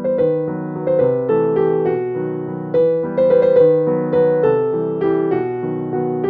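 Background piano music: a gentle melody of single notes, each struck and left to ring and fade.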